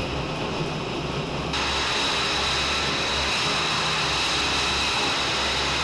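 Jet engines idling on a flight line: a steady rushing noise with a high whine, which grows fuller and brighter about a second and a half in.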